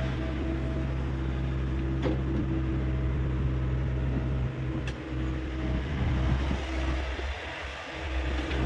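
Hyundai 85A excavator's diesel engine running steadily, with two light clicks and a brief drop in level near the end.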